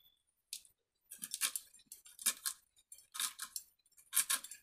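Cabbage greens being cut by hand: four crisp cutting strokes, about one a second.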